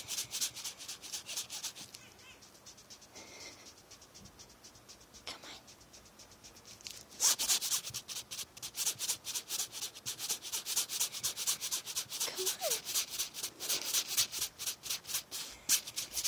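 Tonkinese kitten's claws scratching and scrabbling against the fabric of a tube toy as she climbs it, in quick strokes several times a second. The scratching thins out about two seconds in and picks up again about seven seconds in.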